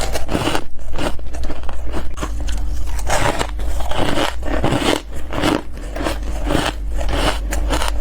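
Freezer frost being bitten and chewed close to the microphone: a quick, irregular series of crunchy, squeaky bites.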